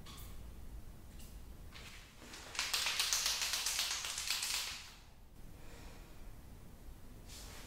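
White liquid chalk marker being shaken, its mixing ball rattling rapidly inside the barrel for about two seconds near the middle; a few faint short scrapes come before and after.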